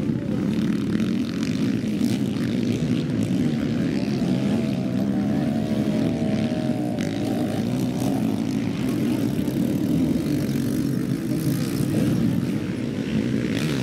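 Sidecar motocross outfits' engines running hard on the track, a steady engine drone with the revs rising and falling, most plainly around the middle.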